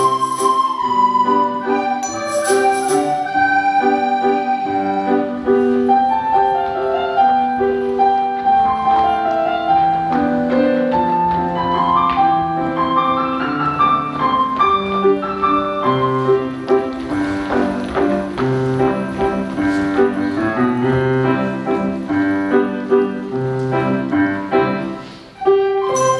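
School recorder ensemble playing in several parts, with held notes over a low bass line. The music briefly drops away about a second before the end, then resumes.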